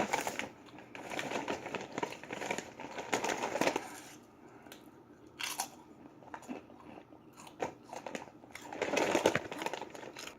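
Lay's potato chips being bitten and chewed, a dense run of crunching for the first few seconds, then scattered crunches, and another run near the end.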